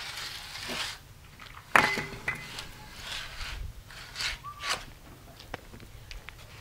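A metal aerosol can and applicator gun handled on a concrete slab: short hisses and several small clicks, with one sharp metallic clink just before two seconds in.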